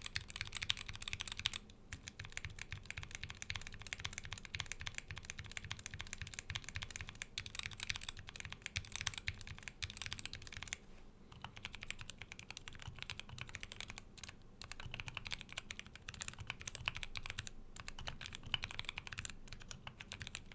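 Typing on a mechanical keyboard with tactile brown-type switches: a fast, dense run of key clacks with a few brief pauses.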